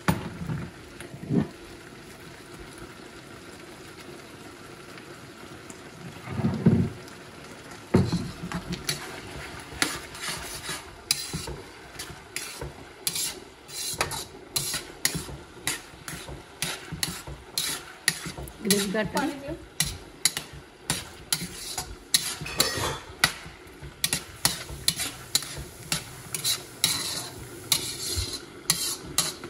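Vegetables and sauce sizzling in a hot steel wok, then from about eight seconds in a metal spatula stirring and scraping against the wok in quick repeated strokes. There is a short, louder low sound about six and a half seconds in.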